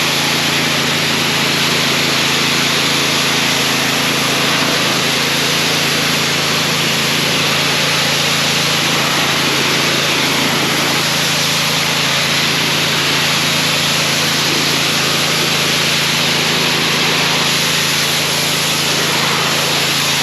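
Gasoline pressure washer running steadily, its engine humming under the loud hiss of the high-pressure water jet blasting dirt off a wall.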